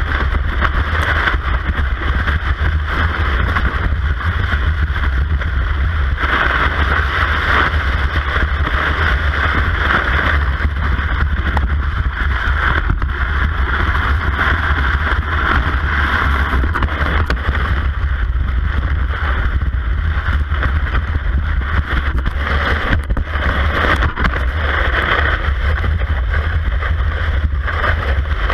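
Cross-country ski gliding in a classic track, heard through a camera mounted on the ski: a steady scraping hiss with a constant low rumble of vibration and wind on the camera housing.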